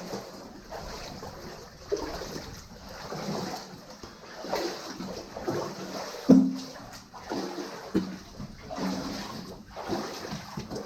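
Boots wading through standing water, splashing and sloshing with each step in an uneven rhythm.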